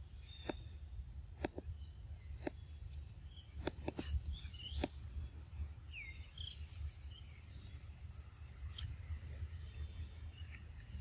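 Outdoor ambience: a few short bird chirps and a thin, steady high insect drone over a low rumble, with scattered sharp clicks about once a second in the first half.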